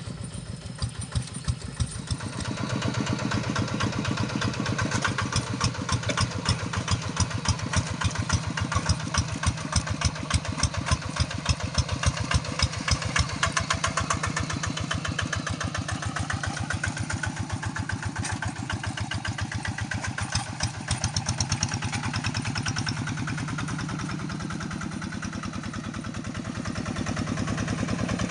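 Large paddy-field tractor's engine running while plowing, with an even, rhythmic firing beat that is loudest through the middle and eases to a steadier, quieter run near the end.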